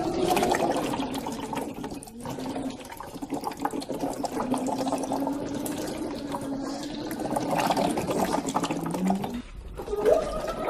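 Voiced bubbling through a silicone tube into a bowl of water, a voice-therapy exercise (the LaxVox method): a gurgle of bubbles under a held hummed tone. The tone sinks lower near the end and breaks off about a second before the end.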